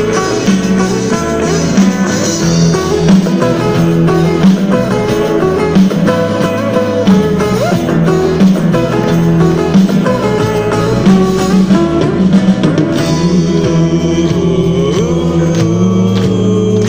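Live band performance with electric guitars and drums over a steady bass line, heard from within the audience.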